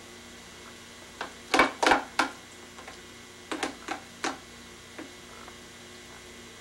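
A toddler's spoon knocking and clicking against a small bowl: a quick run of knocks about a second in, another run around four seconds, and a last one about a second later, over a faint steady hum.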